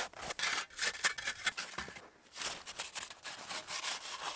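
A hand snow saw cutting blocks out of packing snow, in quick rasping strokes with a brief pause about halfway.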